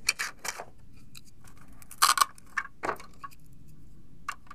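Plastic toy food pieces clicking and clattering as they are picked out of their box and handled: a scattered series of short, sharp clicks, the loudest about two seconds in.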